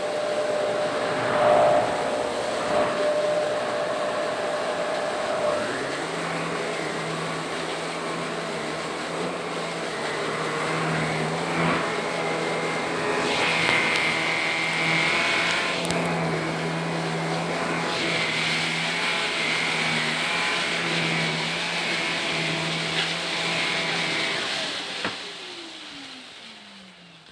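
Shark vacuum cleaner running steadily over carpet with a motor hum. Near the end it is switched off and the motor winds down, its whine falling in pitch as it fades.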